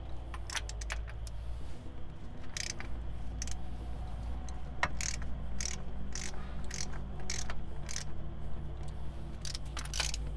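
Sharp, irregular metallic clinks and clicks from a wrench and steel parts on a Kent-Moore Porta-Tool counterbore ledge cutter as it is worked by hand, about a dozen in all, over a steady low hum.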